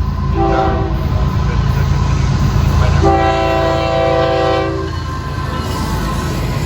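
Diesel freight locomotive horn sounding a short blast and then a longer blast of about two seconds, a chord of several steady tones, over the low steady rumble of the locomotives' diesel engines running.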